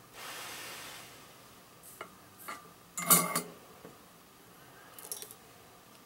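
Wires and metal tools on a helping-hands soldering stand being handled. There is a short rustle, two light clicks, then a louder metallic clatter about three seconds in and a small rattle near the end.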